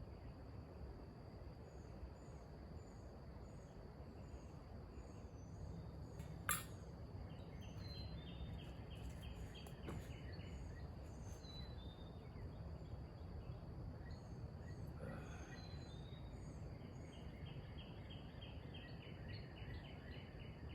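Outdoor ambience of birds and insects: a high chirp repeats evenly over a low rumble, and two runs of fast repeated chirping notes come in, one before the middle and one near the end. A single sharp click about six seconds in is the loudest sound.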